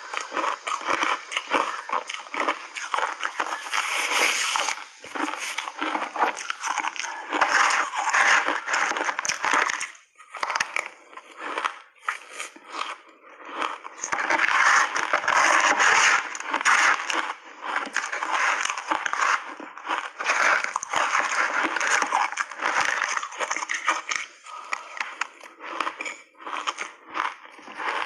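A person chewing mouthfuls of crunchy block ice close to the microphone: dense, continuous crackling crunches, with a brief pause about ten seconds in.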